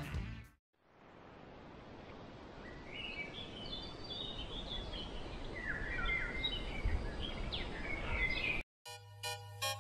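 Songbirds chirping and singing over a steady background rush of outdoor noise. A synthesizer music cue cuts in near the end.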